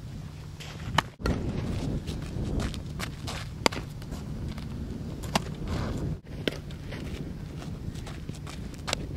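Softball fielding drill on grass: a few sharp smacks of the softball, about four in all, a couple of seconds apart, with footsteps on turf over a steady low rumble.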